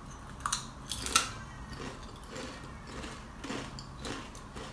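Crisp potato chips (Lay's numb and spicy hot pot flavour) being bitten and crunched. There are two or three sharp crunches about a second in, then softer, irregular chewing crackles.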